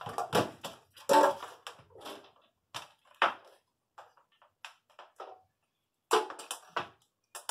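Handling knocks and clatter as a DVD player's metal case is shifted on a glass tabletop and its power cord is coiled up. It is a string of short bumps and taps, loudest about a second in, with another cluster around six seconds.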